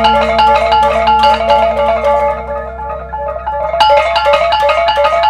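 Balinese gamelan music: metallophones playing a fast, even run of struck, ringing notes in a repeating pattern.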